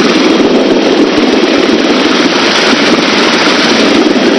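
Rescue helicopter hovering during a hoist lowering: steady, loud rotor and engine noise mixed with wind rushing past the open cabin door, heard over the crew's open intercom microphone.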